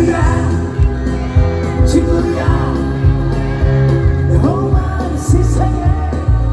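Live pop band music with a singer's voice gliding over sustained bass notes and a steady drum beat.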